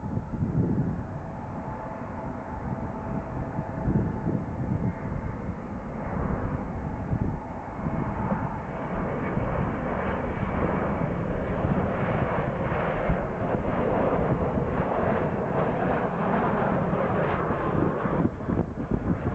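Airliner engines passing close, the noise building steadily louder, with a thin steady whine for a few seconds partway through.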